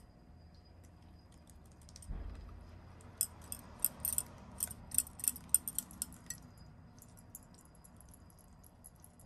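A utensil tapping and scraping against a blender jar as thick spice paste is knocked out of it: a quick run of light clicks and taps from about three seconds in, thinning out after six or so.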